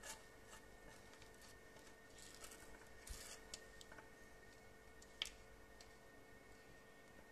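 Near silence: a faint steady hum with a few soft ticks and wet squishes as thick milk pudding pours slowly from a pot into a glass baking dish, and one sharper click about five seconds in.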